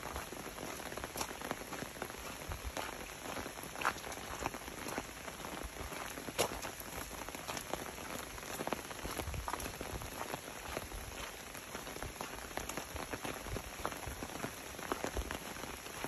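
Steady rain falling, with many separate drops tapping sharply over the constant hiss.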